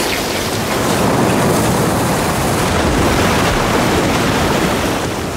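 Whitewater rapids of the Colorado River rushing and churning around an inflatable raft: a loud, steady rush of water noise.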